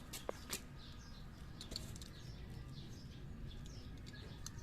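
Faint birds chirping in the background over a low steady hum, with a few small clicks near the start.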